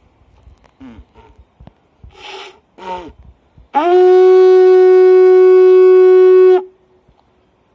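A medium-small white blowing horn sounds one long, steady, high, clear note, held for about three seconds after a couple of short breathy puffs, then cut off sharply. A faint echo of the note carries on for about a second afterwards.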